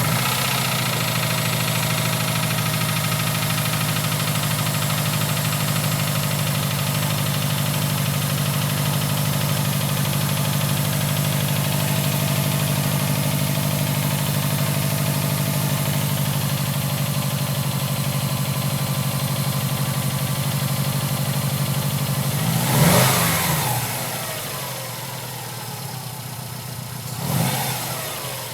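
2011 Subaru Impreza WRX STI's turbocharged 2.5-litre flat-four running at a fast idle just after a cold start, with a knock. The throttle is blipped twice near the end, and the idle settles lower after the first blip. The owner puts the knock down to a cylinder loaded with fuel after a brief start and shutoff during warm-up enrichment, rather than rod knock.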